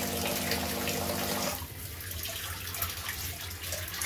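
DeLonghi Magnifica S bean-to-cup machine's pump humming as it pushes water out of the hot-water spout into a container during its descaling cycle. The pump cuts out about a second and a half in, leaving water trickling and dripping.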